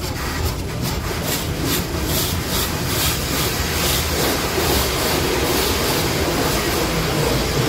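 Automatic tunnel car wash spraying and washing the car, heard from inside the cabin: a loud, dense rush of water drumming on the windshield and body, pulsing about two or three times a second for the first few seconds, then steadier.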